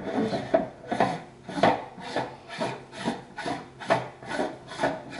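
Starizona Hyperstar assembly being threaded by hand onto the front of a Celestron Edge HD telescope. Each twist of the hand gives a short rasping rub, about two a second.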